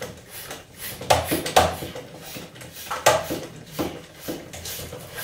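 Hand-operated floor pump worked in a series of uneven strokes, each a rush of air into a tubeless mountain-bike tyre. The valve core is out, so the air goes straight in, to seat the tyre's bead on the rim.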